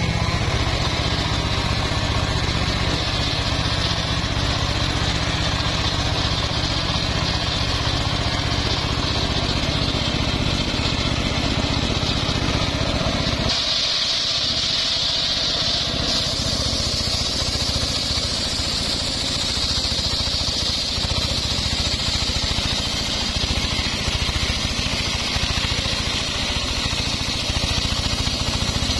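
Engine-driven homemade circular saw bench running steadily as its spinning blade rips a log lengthwise into planks: a constant engine drone under the blade's high cutting whine.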